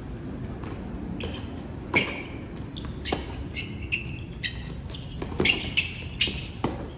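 Tennis ball struck by rackets and bouncing on a hard court during a doubles rally: single sharp hits about two and three seconds in, then a quick flurry of hits near the end as the players exchange volleys at the net.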